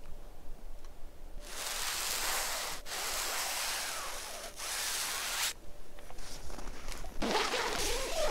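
Fingertip rubbing across frost-coated nylon tent fabric in three long scraping strokes, each a bright hiss, over about four seconds. Softer rustling of handled fabric follows near the end.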